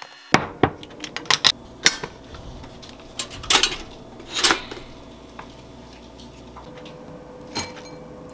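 Kitchen clatter: a string of separate sharp knocks and clinks of dishes and utensils being handled, loudest about three and a half and four and a half seconds in.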